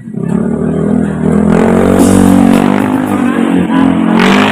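Large speaker stack of a sound system playing loud test audio: a sustained buzzy low tone with many overtones, its pitch wavering slightly, growing stronger about a second and a half in.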